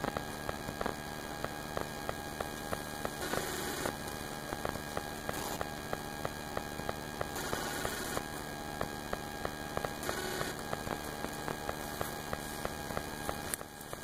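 Honeybee swarm buzzing in a steady hum as the bees are shaken into a top bar hive. A faint tick repeats about twice a second throughout.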